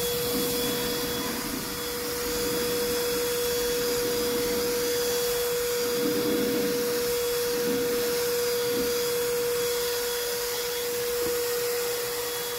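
Schulz electric paint spray gun running steadily, its motor holding a constant whine over the hiss of air and atomised paint. It is spraying matte black vinyl paint at a high flow setting, putting out a very large volume.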